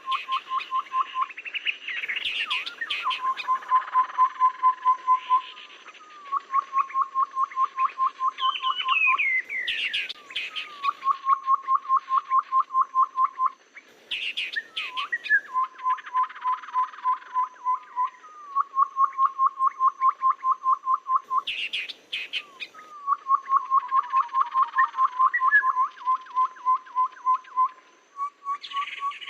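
Bird-lure recording of a tepus (tree-babbler) calling: runs of quick piping notes, about nine a second on one pitch, each lasting a couple of seconds. Between the runs come sharper, higher chattering calls.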